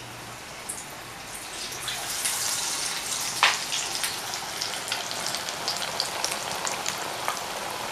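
Batter-coated fish pieces deep-frying in hot mustard oil in a pan: a steady sizzle with scattered pops and crackles. The sizzle grows louder about two seconds in, and one sharp crackle stands out near the middle.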